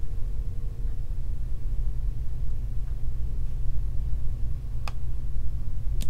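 Steady low background rumble from the recording setup, with a single sharp click near the end.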